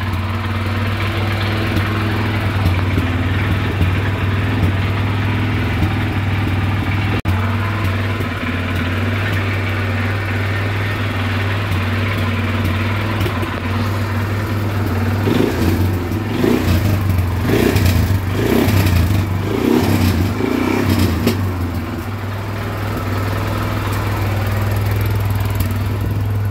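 Dinli 801 350cc ATV engine running steadily, revved up in a few short bursts in the middle.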